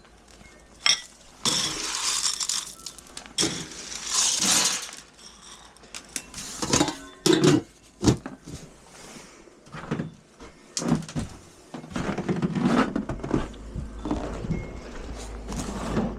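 Close-up handling noises: a string of knocks and clinks mixed with stretches of rustling and scraping as objects are moved about.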